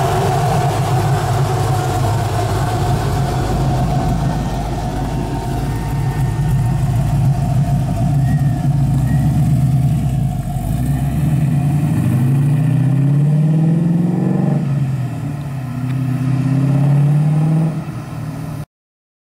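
LS3 V8 engine of a 1969 Camaro convertible running as the car rolls past, then accelerating away: the engine note rises, dips once, and rises again before the sound cuts off abruptly near the end.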